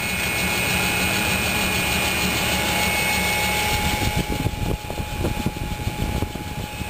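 Machinery running with a steady hum and a steady high whine. From about four seconds in, the higher part drops away and irregular knocks and bumps come through.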